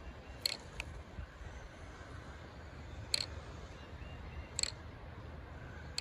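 Four faint, sharp clicks, two close together about half a second in, then single ones near three seconds and near four and a half seconds, over a low steady rumble.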